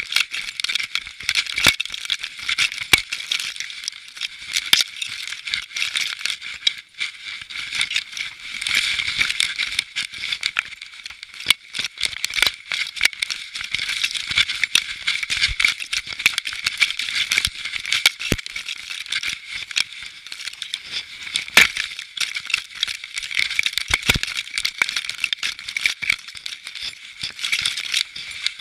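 Continuous rattling and clicking of a camera strapped to a dog's collar, jostled as the dog moves about, with many sharp knocks mixed in.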